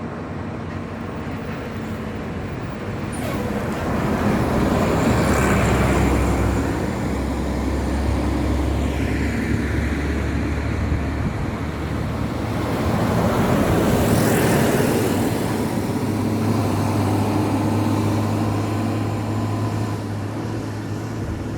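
Buses passing on a road, one after another, their engines and tyres swelling up and fading away. One goes by about five seconds in and another around fourteen seconds, with a steady low engine drone between them.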